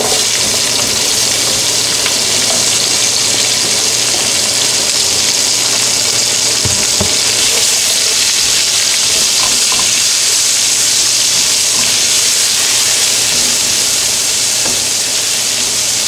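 Sliced onions frying in a hot skillet of oil and beef drippings, a loud steady sizzle, while metal tongs stir them, with a couple of faint knocks.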